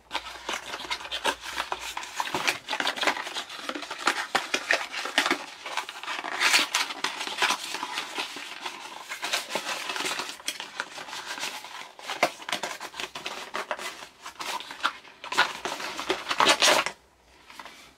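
Cardboard product carton being opened and handled close to the microphone: a busy run of rustling, scraping and clicking of the packaging that stops about a second before the end.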